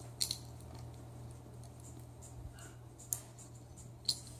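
A pet raccoon pawing at small toys, making a few faint clicks and soft rustles.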